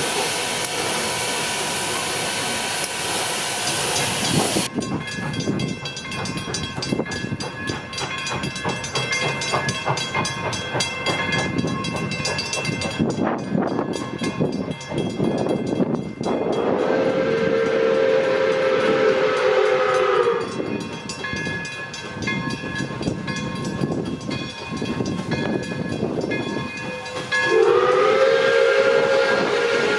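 Steam locomotive venting a loud hiss of steam, then working with a beating exhaust, and sounding its chime steam whistle in two long blasts. The second blast begins near the end, sliding up in pitch as it opens.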